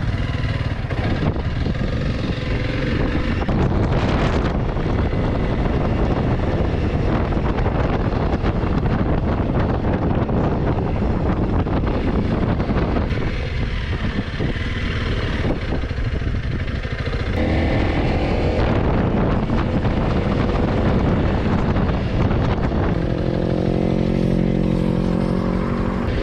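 Honda CRF300L Rally's single-cylinder engine running under way, with heavy wind rush over the microphone. Near the end the engine note comes through as a clearer steady hum.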